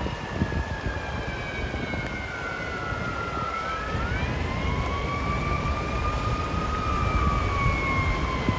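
An emergency vehicle siren wails slowly, its pitch falling for a few seconds and then rising and falling again, with a second siren tone crossing it about four seconds in. Beneath it runs a steady low rush of floodwater cascading over the highway barrier.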